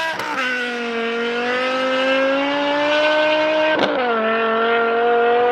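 BMW M car engine under hard acceleration, pulling through the gears. Its pitch climbs slowly and drops sharply at two upshifts, one right at the start and one a little under four seconds in.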